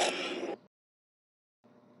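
The tail of a harsh, raspy creature-call sound effect, cut off sharply about half a second in, then digital silence.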